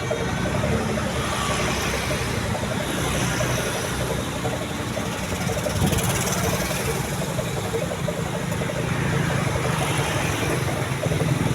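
Slow, bumper-to-bumper traffic: the engines of queued tour buses running at idle and crawling pace, a steady engine hum with road noise.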